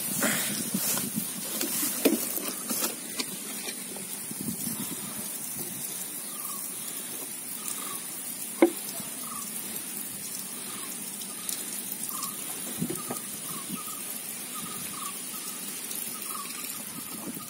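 Water trickling and splashing out of a plastic bottle fish trap lifted from the water, with a couple of sharp knocks, about two seconds in and again midway.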